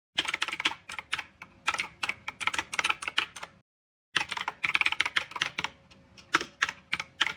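Typing on a keyboard: two runs of quick, irregular key clicks, each about three seconds long, with a half-second pause between them.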